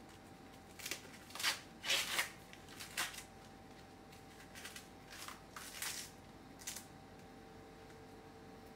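An ear of fresh corn being husked by hand: the green husk leaves tear off in a series of short rips and rustles, loudest about one and a half to two seconds in and trailing off after about seven seconds.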